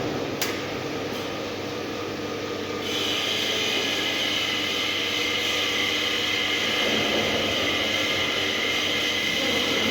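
Steady hiss of a welding arc on a steel tank seam, with a sharp click about half a second in; about three seconds in it grows louder and brighter.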